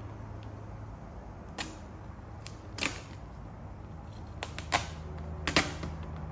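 Air-release vinyl overlay film being lifted and worked on a car's fender, giving several sharp snaps and clicks, more of them close together in the second half, over a steady low hum.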